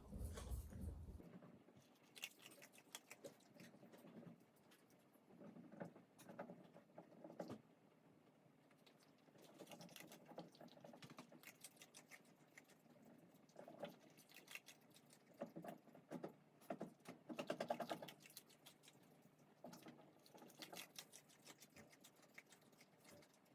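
A pet crunching dry food in short bursts of quick, faint clicky bites, separated by pauses.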